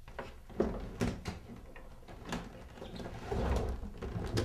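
Books being packed into a leather suitcase: a few knocks and rustles as they go in, then a sharp click near the end as the case's metal clasp snaps shut.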